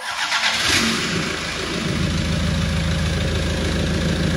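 Toyota 1KD-FTV 3.0-litre four-cylinder turbo-diesel, freshly swapped into a Hilux, firing up and settling into a steady idle after about two seconds. This is the engine's first run after the swap, with it not yet bolted down.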